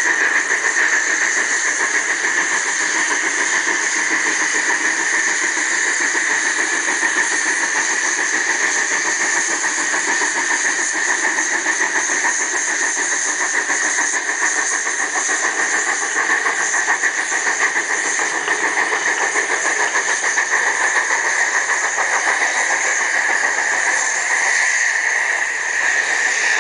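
Narrow-gauge Denver & Rio Grande 2-8-0 steam locomotive No. 315 passing with a freight train of gondolas and flatcars. Steady hiss of steam and the noise of the train going by, without letup.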